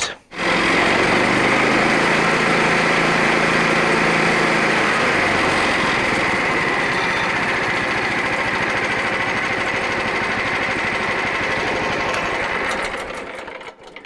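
Frontier OS27 bandsaw mill's small petrol engine starting and running up, driving the band blade through a newly fitted drive belt as the belt and blade tracking are checked. A steady running sound that changes about five seconds in and dies away near the end as the mill is shut off.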